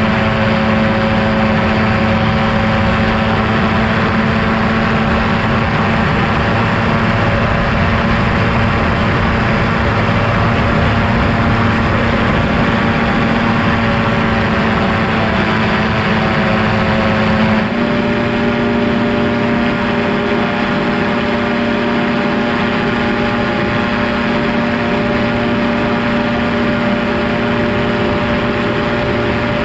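Quicksilver MXL-2 ultralight's engine and propeller droning steadily in flight. About eighteen seconds in, the pitch steps slightly higher.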